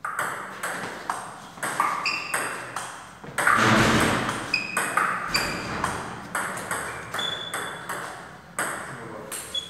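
Table tennis rally: the ball clicking off the paddles and the table top, a couple of strokes a second, some bounces ringing briefly. A louder rushing noise rises about three and a half seconds in and fades within a second.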